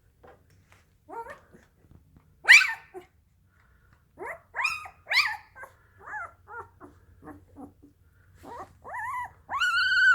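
Dalmatian puppy whimpering and yipping in its sleep: a run of short yips, the loudest about two and a half seconds in, and a longer whine near the end.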